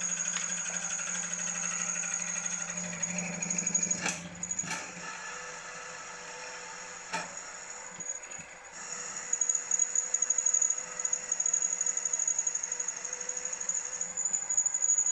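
Milling machine spindle running with a drill bit cutting into a small steel or brass steam manifold, drilling down to break into a hole inside it, under a steady high whine. A few sharp knocks come about 4 and 7 seconds in, and from about 9 seconds the cutting turns louder and pulses quickly as the bit is fed down.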